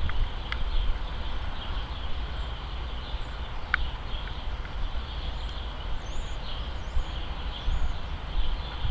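Outdoor background: an uneven low rumble, with faint, short high bird chirps now and then.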